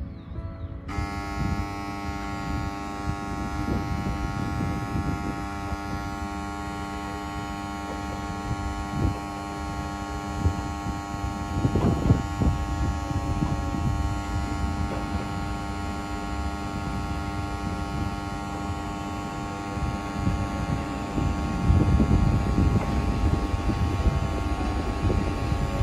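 Diesel railcar idling at the platform: a steady engine hum with several fixed tones. Low rumble grows louder over the last few seconds as a second diesel railcar comes in on the other track.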